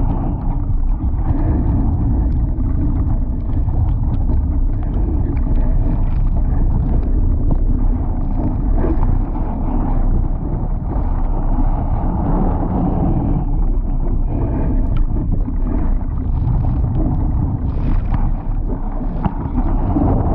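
Laser dinghy sailing fast in strong gusty wind: wind buffeting the microphone with a heavy low rumble, over water rushing and splashing along the hull, with short bursts of spray now and then.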